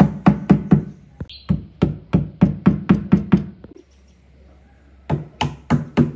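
Rapid hammer blows, about four a second, in a run of some fourteen strokes, then a pause of over a second before another quick run begins near the end.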